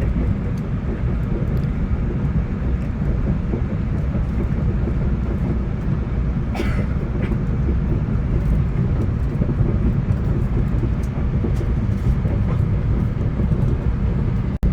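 Steady low rumble of a VIA Rail passenger train running along the track, heard from inside the coach, with scattered light clicks and a brief sharper rattle about six and a half seconds in.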